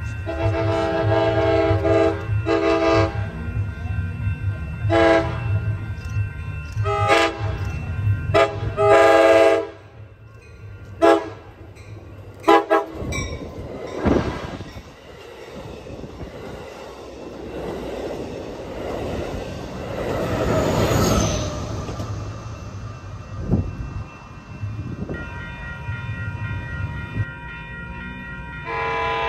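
Amtrak Pacific Surfliner train's horn blown in a rapid string of short and long blasts over the first dozen seconds as the train approaches. The train then passes through at speed with a loud rush of wheel and car noise and a brief rising whine partway through. One more horn blast sounds at the very end.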